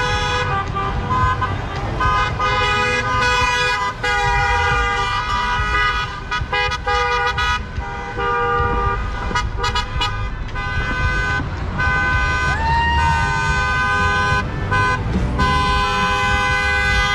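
Many car horns honking at once in long, overlapping blasts from a procession of passing cars, over a low rumble of engines. A short rising tone cuts through about twelve seconds in.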